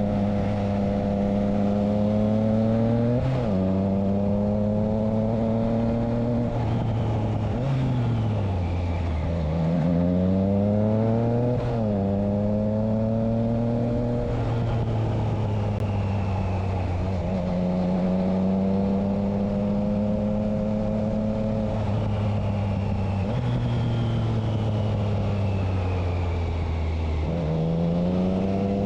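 Triumph Trident 660 inline three-cylinder engine through a Spark exhaust with its dB killer fitted. The engine note climbs steadily under acceleration and drops sharply several times, as at gear changes, with one slower fall in pitch as it slows before pulling again.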